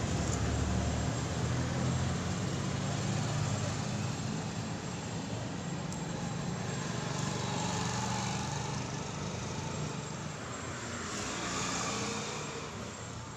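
Steady low engine and traffic rumble, easing a little toward the end, with a few faint small clicks.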